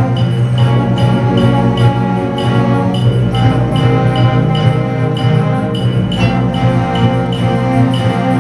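School concert band playing: clarinets and brass holding sustained chords over a steady percussion beat.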